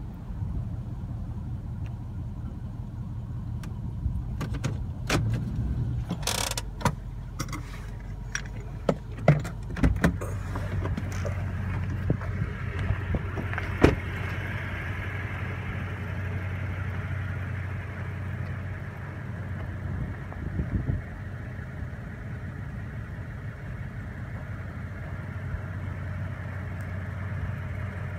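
Toyota Tundra pickup running with a steady low hum. Through the middle comes a run of sharp clicks and knocks, the loudest about halfway in, then the truck hums on steadily at idle.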